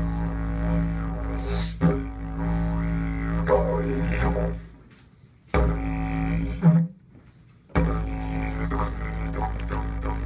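Didgeridoo playing a steady low drone with shifting overtones and a few sharp louder accents. The drone stops twice briefly around the middle, then picks up again.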